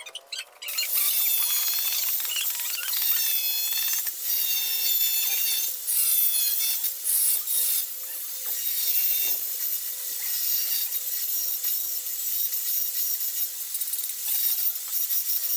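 A plastered wall being sanded and scraped by hand: continuous scratchy rubbing strokes, with some squeaks in the first half.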